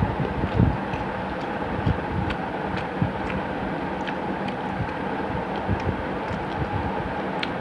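Close-up eating sounds: chewing a mouthful of rice and chicken curry, with small wet mouth clicks scattered throughout and a few soft thumps in the first three seconds. A steady hum and hiss sits underneath.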